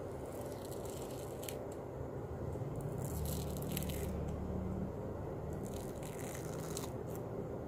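Dried peel-off blackhead mask being pulled off the skin of the nose, with faint crackling and tearing in short spells. Under it a steady low hum swells for a couple of seconds in the middle.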